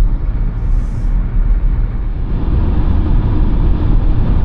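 Steady low rumble of a car driving, heard from inside the cabin: road and tyre noise with the engine underneath.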